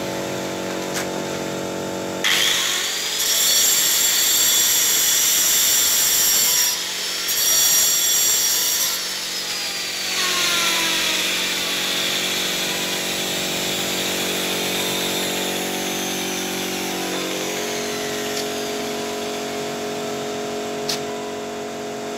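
A power tool runs with a high whine for about seven seconds, stopping briefly in the middle, then winds down with a falling whine. A steady machine hum runs underneath and drops in pitch near the end, and a single click comes shortly before the end.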